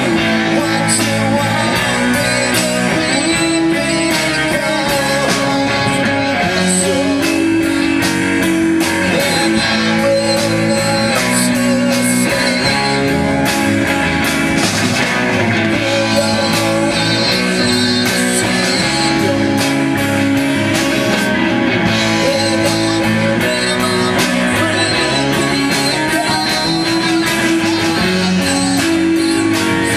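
Live rock band playing: electric guitars over a drum kit, loud and steady throughout.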